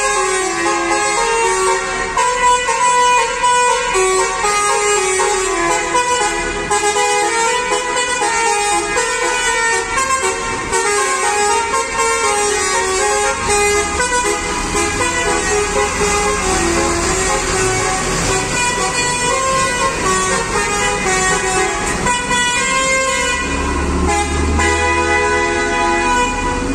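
Basuri multi-tone 'telolet' bus horns playing a melody, the notes stepping up and down without a break. Near the end a bus's diesel engine rumble swells underneath as the bus pulls out.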